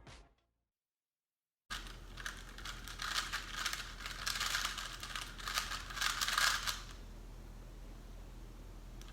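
Rubik's Cube being turned quickly by hand: a dense run of rapid plastic clicks lasting about five seconds, stopping abruptly near the end, leaving a steady low hum.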